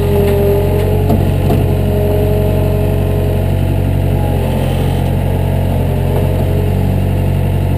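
Heavy-equipment engine running steadily, with a whine that wavers slightly in pitch over it.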